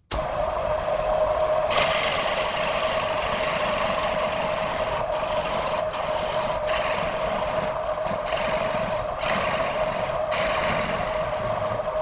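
Wood lathe running with a steady motor whine while a turning tool cuts the spinning wood, a hissing scrape that starts about two seconds in and breaks off briefly several times.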